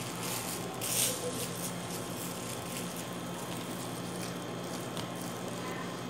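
Thin plastic bag filled with lemon juice crinkling as it is handled and knotted shut, with one short rustle about a second in, over a steady low hum.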